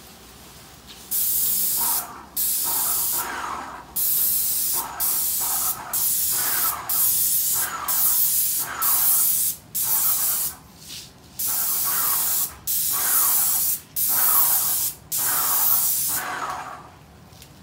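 Airless paint sprayer gun with a fine-finish low-pressure 312 tip spraying paint in short passes: about fourteen hissing bursts, each under a second long, with brief gaps as the trigger is released between passes.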